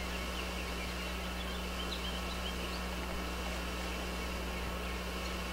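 Steady low electrical hum and hiss, with a few faint bird chirps in the first half.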